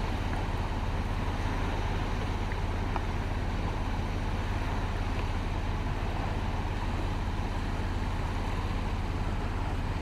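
Steady low rumble and hiss of wind and small waves breaking on a rocky shore, with no bird calls heard.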